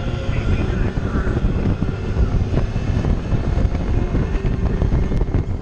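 Open ride car of Radiator Springs Racers running at speed along its track, a loud steady rumble mixed with wind rushing over the open car.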